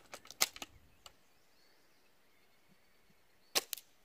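Spring airsoft bolt-action sniper rifle: a quick run of sharp clicks and snaps in the first second, then a sharp shot about three and a half seconds in, with a second snap right after it.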